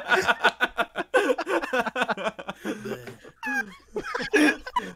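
Several people laughing over a voice chat, in short, choppy bursts of laughter.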